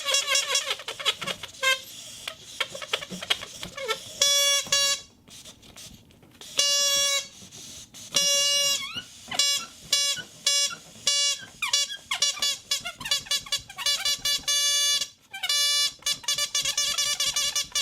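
A toy whistle blown in a run of steady, buzzy toots, all at the same pitch: some last about a second, others are short and quick. Irregular squeaky fluttering comes before the first toot.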